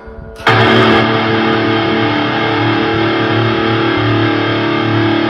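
Electric guitar played through a high-gain amp-simulator plugin: a loud distorted chord starts about half a second in and rings on steadily.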